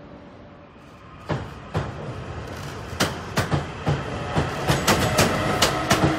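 Electric passenger train passing close by. Its wheels clack sharply and irregularly over rail joints and switches, growing louder as the cars run past, after a faint steady hum for about the first second.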